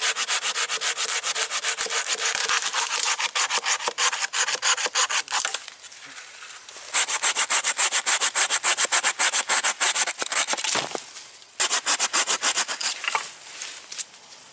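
Bahco Laplander folding saw cutting through a branch with fast back-and-forth strokes, several a second. The sawing comes in three spells with short breaks, about five and eleven seconds in, and fades near the end.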